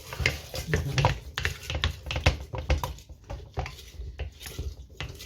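A spoon stirring a home-made syrup mixture in its container, with rapid irregular clinks and knocks against the sides.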